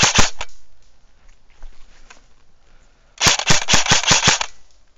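AKS-74U airsoft electric rifle firing full-auto: a rapid string of sharp clacking shots that stops about half a second in, then a second burst of roughly a second and a half starting about three seconds in.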